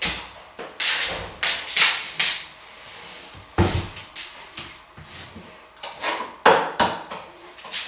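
Irregular knocks, clatters and rustling from laundry being handled: a plastic laundry basket set down, clothes moved about, and a plastic detergent bottle handled and opened near the end.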